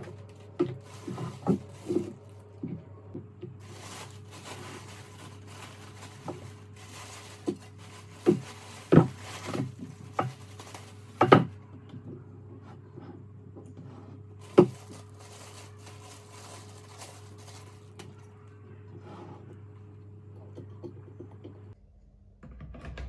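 Handling noise from unpacking and assembling a stereo microscope: plastic wrapping rustling and parts knocked and set down on a table, with several sharp knocks, over a steady low hum.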